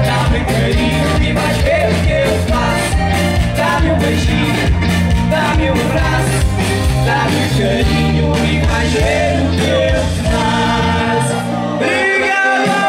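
A live band plays an upbeat dance song through a concert PA: drums, bass, keyboard and electric guitar, with a singing voice over them. The bass and drums drop out near the end.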